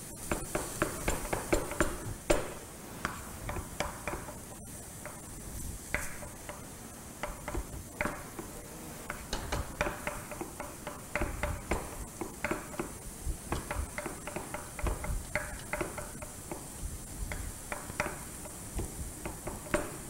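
A utensil stirring and scraping in a frying pan: irregular taps and clinks against the pan, densest in the first couple of seconds, over a faint steady sizzle.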